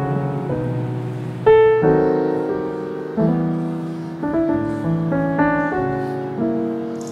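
Background piano music: slow chords struck about once a second, each ringing and fading away.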